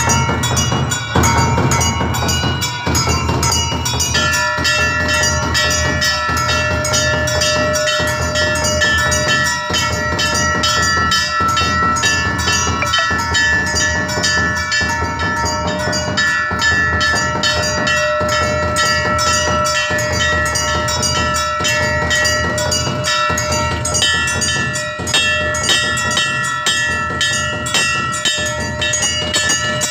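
Temple bells clanging rapidly and without pause, with quick beating throughout; a steady ringing tone joins about four seconds in.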